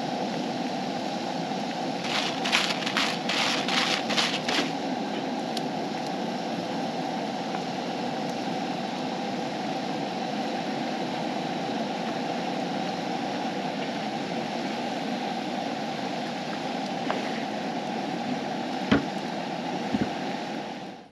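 French fries deep-frying in a skillet of oil on a camp stove, a steady sizzle throughout. About two seconds in there is a quick run of rattling shakes from a seasoning shaker, and a single sharp click comes near the end.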